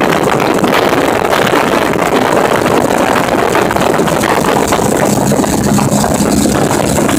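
Motorcycle ridden at cruising speed: a steady rush of wind over the microphone mixed with the engine's running. A low engine hum comes through more clearly near the end.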